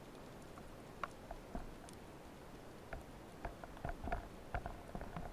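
Underwater ambience over a rocky seabed: a faint steady hiss with scattered sharp clicks and crackles, sparse at first and growing busier from about three seconds in.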